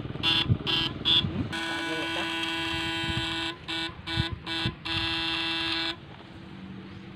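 Backpack electric-fishing rig buzzing with a steady electric tone as its probe sends current into the paddy water to stun swamp eels: three short bursts, then a long steady buzz broken by a few quick stutters, cutting off near the end.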